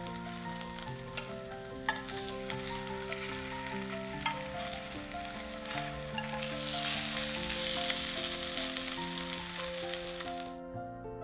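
Batter-coated napa cabbage pancakes sizzling as they fry in hot oil in a frying pan. The sizzle grows louder in the second half and cuts off suddenly near the end. Soft background music plays underneath.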